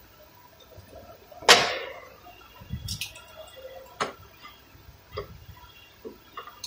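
Metal clanks and clicks from hand work on a differential: one loud clank with a short ring about a second and a half in, then several lighter metallic taps.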